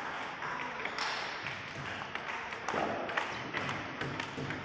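Table tennis balls clicking off paddles and tables in an irregular patter of taps, with rallies going on at several tables at once.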